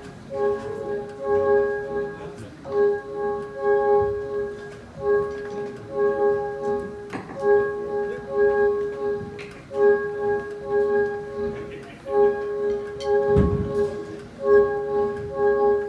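Live music: a keyboard playing a chord of several held notes in short phrases, over and over, without drums.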